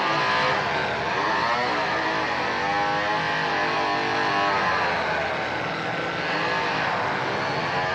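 Gasoline chainsaw running and being revved, its engine note rising and falling over and over.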